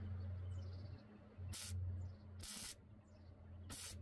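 MIG welder arc crackling in three short bursts, each about a quarter second, as the hole burnt through the mower deck is filled with short pulses of weld. A steady low hum runs underneath.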